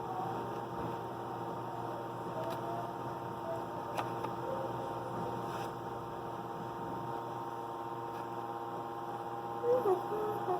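A steady electrical hum made of several fixed tones, with a few faint ticks. In the last second a voice starts humming a wavering tune.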